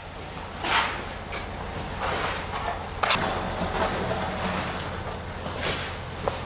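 Sand being shovelled and filled into woven plastic sandbags: several short scraping swishes of a shovel and pouring sand, over a steady low hum.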